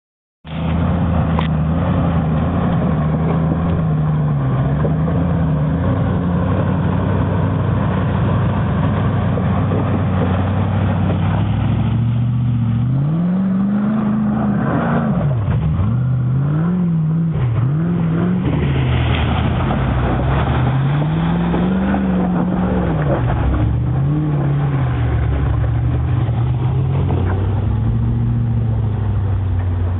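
Land Rover engine running under off-road driving, steady at first, then rising and falling in pitch several times as the throttle is worked, before settling steady again near the end.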